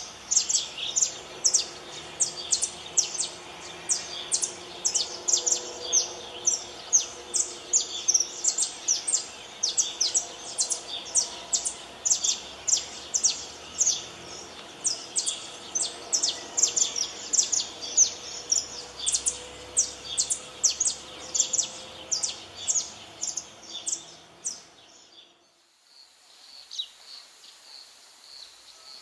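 A songbird singing a fast run of short, high chirps, several a second. It cuts off abruptly near the end, and a fainter bird goes on calling.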